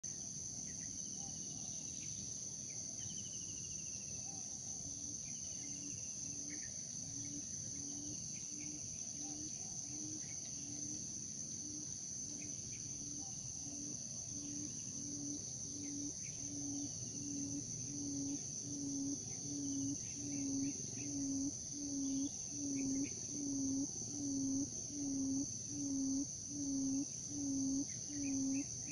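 A quail's low hooting call repeated about once a second, the lure call used to attract wild quail, growing steadily louder through the second half. Underneath, crickets and insects keep up a steady high drone.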